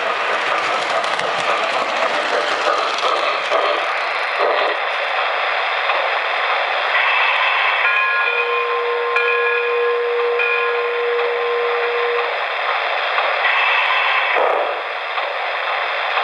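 Model steam locomotive Wabash No. 700 running past on three-rail track, with steady wheel rumble and steam hiss. Its whistle sounds for about four seconds in the middle of the run, one held note whose upper tones break twice.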